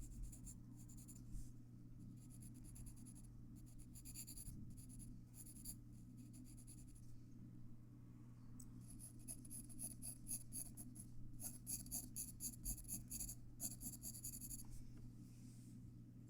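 Graphite pencil shading on paper: faint, quick back-and-forth scratching strokes in runs, busiest in the second half, over a steady low hum.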